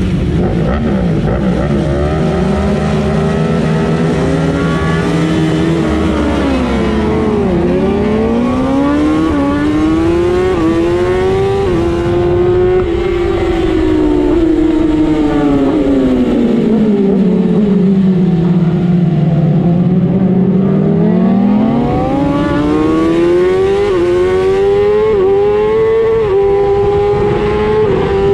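Racing motorcycle engine heard from on board, revving hard through the gears: the pitch climbs in short steps with each upshift, sweeps down twice as the bike slows for corners, then climbs again through a quick run of upshifts near the end. Other bikes' engines overlap it in the first few seconds as the pack leaves the grid.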